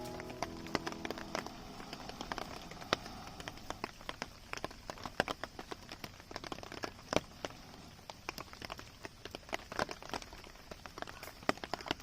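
Rain on a tarp: irregular sharp taps of single drops over a faint hiss, with background music fading out in the first second or so.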